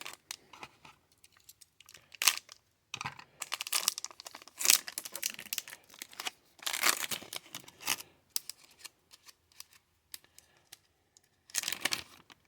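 Crinkling and rustling of plastic card sleeves and wrappers as trading cards are handled and sleeved. It comes in irregular bursts of about a second each, with short quiet gaps between.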